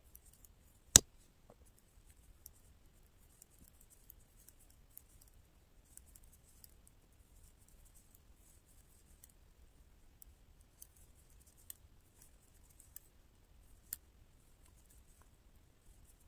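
Metal double-pointed knitting needles clicking against each other as stitches are worked: scattered faint ticks, with one sharp, much louder click about a second in.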